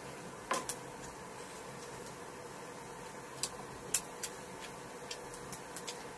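A few sharp clicks of wooden chopsticks and a wooden spoon tapping against a stainless steel pot, the loudest about half a second in and about four seconds in, over a steady hum.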